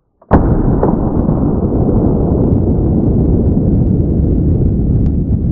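A sudden loud onset that turns at once into a loud, steady, low noise that goes on without a break, with a faint click about a second in.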